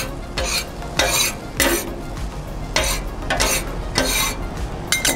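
A metal spatula scrapes and stirs diced onions on a hot steel Blackstone griddle top, with repeated quick scraping strokes about twice a second. The onions sizzle steadily underneath.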